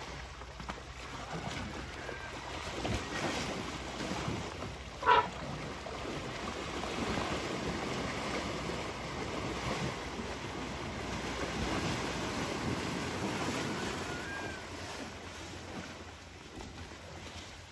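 Muddy water splashing and sloshing as young Asian elephants wade and wrestle in a pool, a steady rushing wash that grows louder in the middle and eases off near the end. About five seconds in, one short, loud high-pitched call cuts through.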